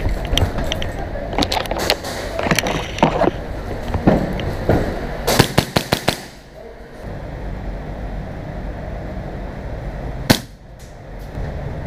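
Airsoft guns firing in close quarters: scattered sharp shots, then a fast string of about five shots around five seconds in, and a single shot near the end.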